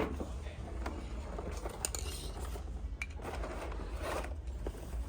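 Scraping and rustling handling noises with scattered clicks, over a steady low hum; a sharp click right at the start is the loudest moment.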